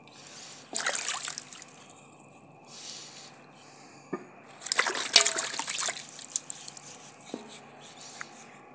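Hands washing vegetables in shallow water in a steel basin: water splashing and trickling as the vegetables are rubbed and turned, with two louder bursts of splashing, about a second in and about five seconds in.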